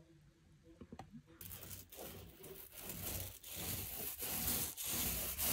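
A paint roller loaded with paint being rolled over a wall, making a noisy rolling sound in repeated strokes that starts about a second and a half in and grows louder.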